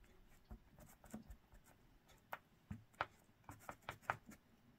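Faint small taps and clicks with light paper handling, a dozen or so short ticks that bunch together in the second half, as craft pieces and paper are handled on a tabletop.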